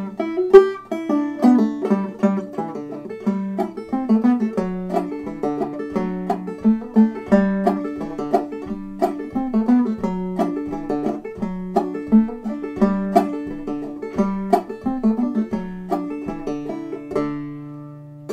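Five-string banjo played clawhammer style in double D tuning: a brisk old-time tune picked in a steady, even rhythm, with the last notes ringing out and fading near the end.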